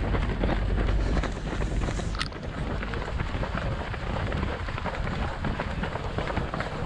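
Wind buffeting the microphone of a camera carried by a runner, with a low rumble strongest in the first two seconds, over the patter of many runners' footsteps on a path. A brief sharp click about two seconds in.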